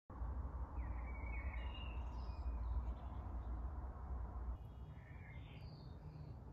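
Garden ambience: small birds chirping a few times, in two short clusters about a second in and again about five seconds in, over a steady low rumble that eases about halfway through.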